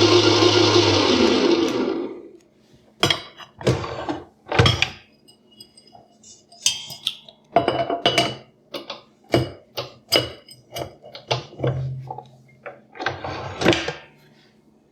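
Zacme stand mixer motor running at top speed with no attachment fitted, then switched off and winding down to a stop about two seconds in. After it, a series of short clicks and knocks.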